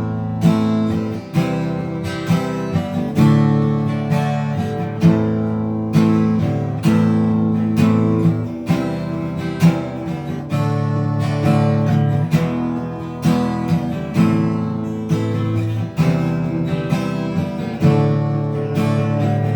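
Acoustic guitar strummed in a steady rhythm, chords ringing: an instrumental break between sung verses.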